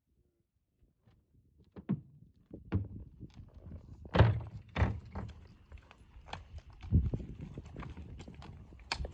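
A horse's hooves: irregular thuds and knocks starting about two seconds in, the heaviest around four and seven seconds in, with lighter clicks between.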